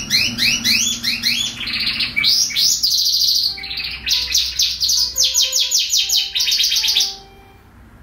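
Domestic canary singing: fast runs of repeated rising notes and rapid trills, its phrase changing every second or so, stopping abruptly about seven seconds in.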